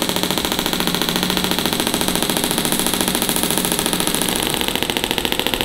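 Storz Medical radial shockwave therapy handpiece firing a fast, even train of clicking pulses into the tendon at the back of the elbow.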